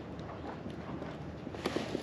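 A few light knocks and taps of gear being handled on a plastic kayak deck, with a quick cluster of them near the end, over a steady low background of water and wind.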